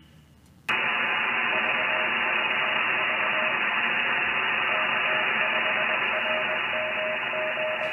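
Shortwave receiver audio of a CW (Morse code) signal: a faint keyed tone sending dots and dashes, buried in loud, steady static hiss that cuts in sharply under a second in. Near the end the hiss dips slightly as RM Noise's AI noise removal is brought in.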